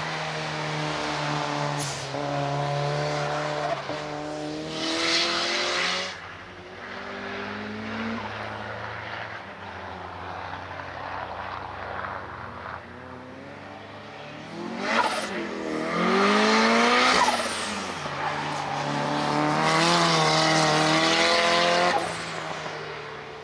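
Nissan 200SX race car driven hard through a cone slalom, its engine revving up and down over and over. Tyres squeal in the turns. The loudest parts come in the second half: a quick rise and drop in revs, then a long high-revving stretch near the end.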